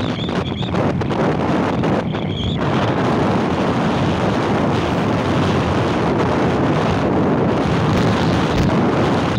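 Steady wind rush buffeting the microphone of a moving motorbike, mixed with the road noise of the ride.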